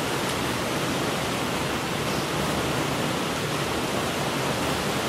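Steady, even hiss with nothing else standing out: the background noise of the recording.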